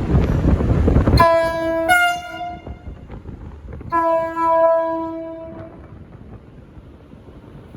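V/Line VLocity train's horn sounding two blasts, the first about a second and a half long with a second, slightly higher tone joining partway, the second about as long. A low rumble of wind on the microphone comes before the blasts.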